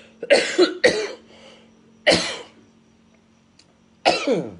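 A man coughing: two coughs in quick succession near the start, another about two seconds in, and a fourth near the end.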